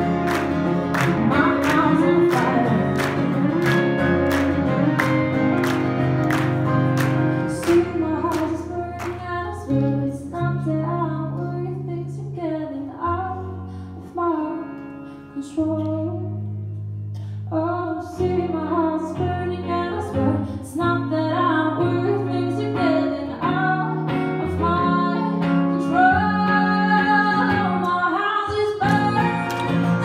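Live acoustic set: a female singer with a strummed acoustic guitar, joined by an electric guitar. The guitars are strummed hard at first, drop to a quieter passage about halfway through, and build again under her singing in the second half.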